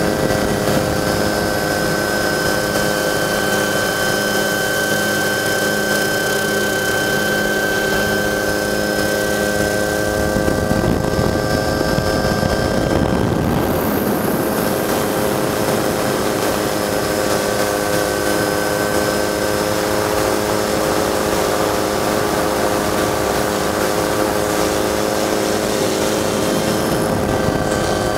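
Camera helicopter's turbine and rotor running steadily, heard from on board as an unchanging drone with several held tones.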